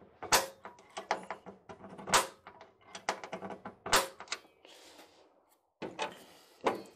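Sharp metal-on-metal clicks from a hand center punch being set into the center of a spot weld on a steel floor pan. There are three loud snaps about two seconds apart, with lighter taps and scrapes between them.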